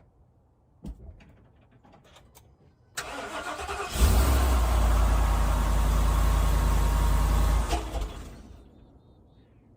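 Motorhome engine being started on a jump box: a click about a second in, then the starter cranks for about a second before the engine catches and runs steadily for about four seconds, and the sound then fades away.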